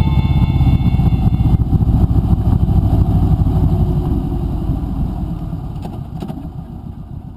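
Kawasaki Vulcan 1700 Voyager's V-twin engine running with a low, pulsing rumble. The sound fades away gradually over the last few seconds.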